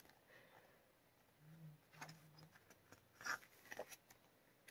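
Pages of an album photobook turned by hand: quiet paper rustling, with two short page flaps a little after three seconds and near four seconds.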